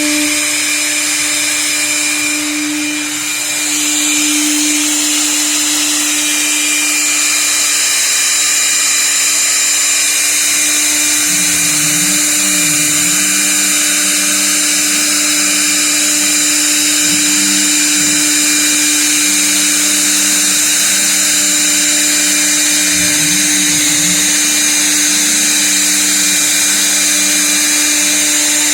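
CNC router spindle running steadily while cutting out letters: a constant high whine over a steady noise, with a lower hum that dips briefly a few times.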